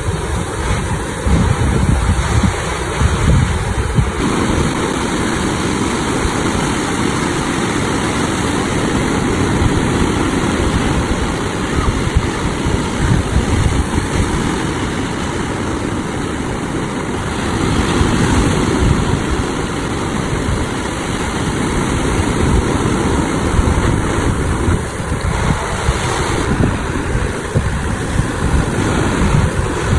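Sea waves breaking and washing up the beach in a steady, continuous rush, with wind rumbling on the microphone.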